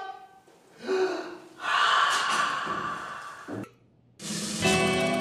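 A person's breathy vocal sounds: a short one about a second in, then a longer one lasting about two seconds. After a moment's silence, music starts near the end.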